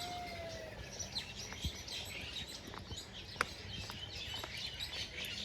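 Small birds chirping and twittering, many short high calls overlapping, with a single sharp click about three and a half seconds in.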